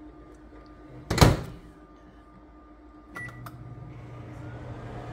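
Microwave oven: the door shuts with a loud knock about a second in, keypad presses and a short beep follow around three seconds, and then the oven starts running with a steady low hum.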